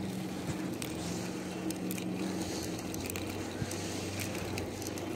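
Mountain bike rolling over asphalt: steady tyre and riding noise with scattered small clicks and rattles, over a steady low motor hum.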